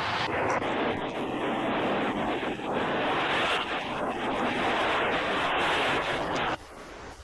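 Loud, steady rush of water, as of floodwater or torrential rain, that cuts off abruptly about six and a half seconds in.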